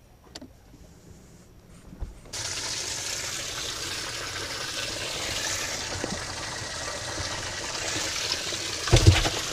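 Boat livewell being filled: water rushes steadily from the pump outlet, starting abruptly about two seconds in once the switch is flipped. A few heavy thumps come near the end.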